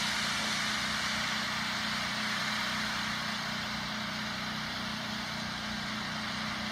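An engine idling steadily, a low even hum under a constant hiss.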